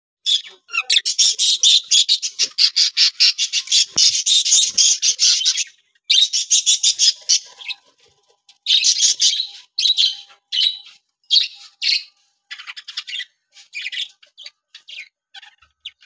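Budgerigars chirping in fast, rapidly repeated calls: an unbroken run for the first six seconds or so, then shorter bursts with brief gaps.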